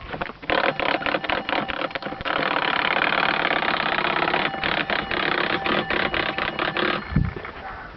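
Electric doorbell ringing in a continuous rattling ring. It starts about half a second in and stops about seven seconds in.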